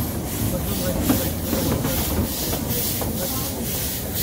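1916 Decauville steam locomotive (works no. 1652) working a narrow-gauge train, its exhaust beating about three times a second with a hiss of steam, over the clatter of the carriage wheels on the rails.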